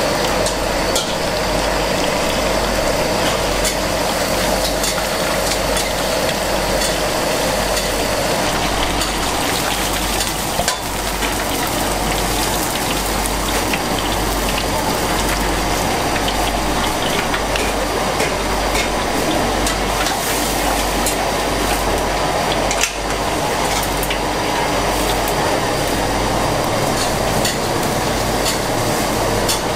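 Whole fish deep-frying in a wok of hot oil: steady sizzling with many small crackles over a steady low rumble.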